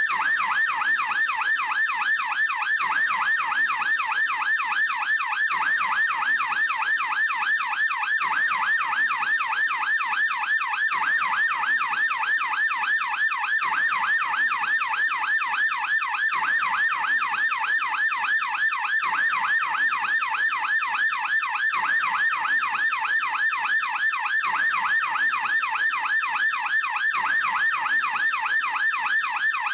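Swiss police siren in fast yelp mode: a rapid up-and-down warble that repeats several times a second and holds steady throughout.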